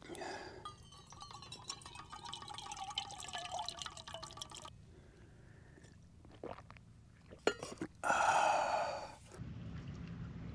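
Water pouring from a stainless-steel vacuum flask into a steel mug for about four and a half seconds, stopping abruptly. A few light clinks follow, then a short loud rushing noise about eight seconds in.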